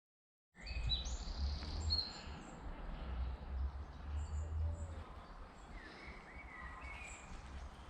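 Birds chirping in short calls over a low, fluctuating rumble. The rumble is loudest for the first few seconds, then eases.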